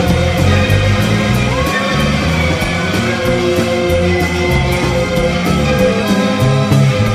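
Rock music with a steady beat and held, bending instrument notes.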